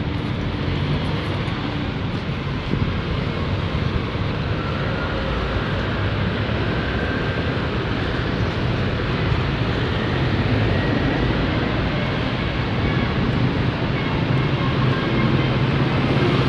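Steady street traffic noise from cars and motorcycles running past, growing slightly louder near the end.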